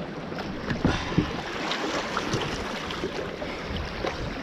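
Water sloshing and splashing against a sea kayak's hull as the paddler gets in from the shore rocks and paddles off, with a couple of knocks about a second in.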